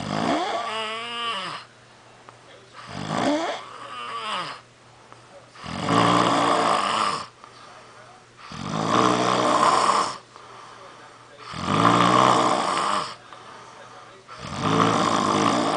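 Snoring: six snores, one about every three seconds, each lasting a second or more. The first two have a wavering whistly pitch, and the later ones are rougher and buzzier.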